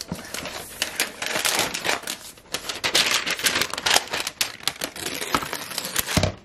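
Paper wrapping sheet rustling and crinkling with dense crackles as it is handled and peeled off a new laptop, loudest in the middle and cutting off suddenly near the end.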